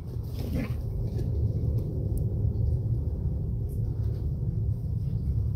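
Steady low rumble of wind buffeting the microphone, with one short higher-pitched sound about half a second in and a few faint clicks.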